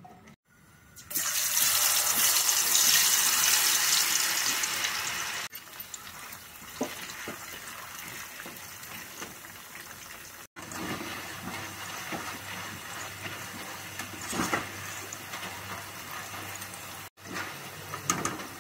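Potato sticks deep-frying in hot oil in a kadai: a loud sizzle starts about a second in, then settles after a few seconds into a steadier, quieter bubbling hiss, with a few light knocks near the end.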